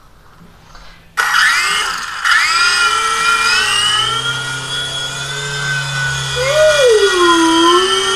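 Small electric motor of a remote-control toy airplane spinning its propeller: a high whine that starts suddenly about a second in and then wavers up and down in pitch as the throttle is worked.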